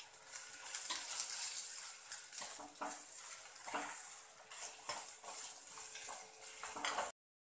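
Chopped onions sizzling in hot oil in a kadai as a steel slotted ladle stirs them, scraping and knocking against the pan with each stroke. The sound cuts off suddenly near the end.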